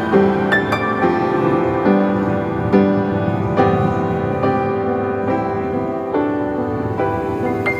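Background music: a slow, gentle piano-led instrumental with a new chord about every second.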